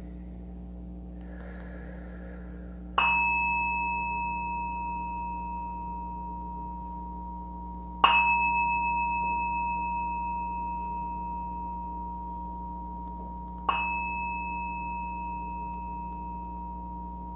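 Small metal singing bowl struck three times with a wooden mallet, about five seconds apart; each strike rings on in a clear, steady tone that slowly fades.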